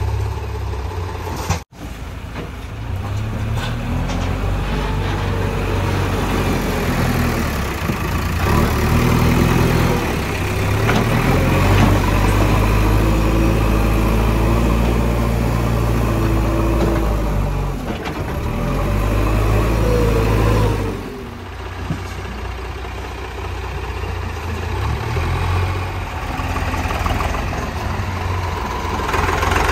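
Diesel engines of a backhoe loader and tractors running, their pitch rising and falling as they work. The sound cuts out abruptly for a moment about two seconds in, and drops suddenly in level around twenty-one seconds in.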